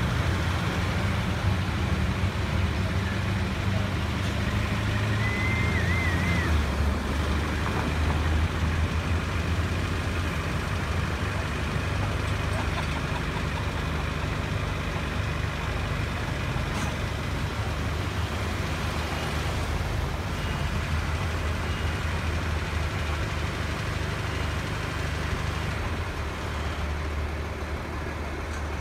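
A large truck's engine idling, a steady low hum.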